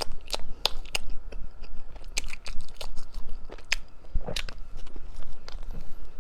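Close-miked crunching of a person biting and chewing crisp food, with sharp, irregular crunches.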